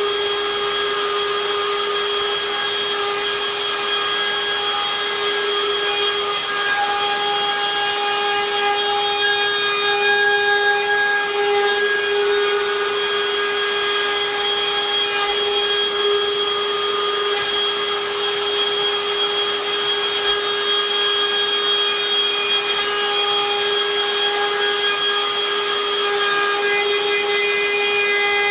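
Hikoki cordless router running steadily while cutting a lock mortise into a door edge: a constant motor whine over the hiss of the cutter in the wood.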